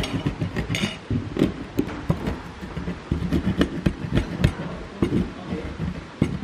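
Stone pestle (ulekan) crushing and grinding coriander seeds and salt in a volcanic-stone cobek mortar. Stone knocks and grinds on stone in a quick, uneven run of knocks and gritty scrapes, several a second.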